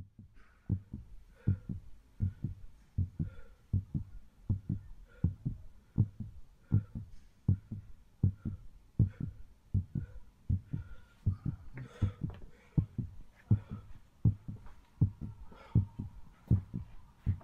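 Heartbeat sound effect: low double thumps repeating evenly, a little over once a second. A faint steady high tone comes in near the end.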